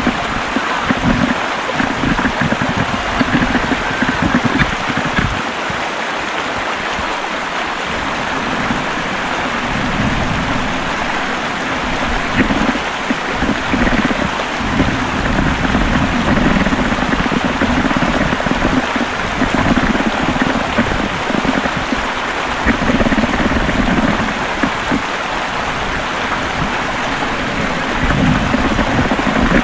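Whitewater rapids rushing steadily, with water splashing against an inflatable raft, heard up close from the raft's bow.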